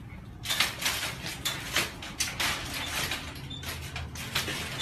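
Dog eating dry food from a bowl: a quick, irregular run of crunches and clatters, starting about half a second in.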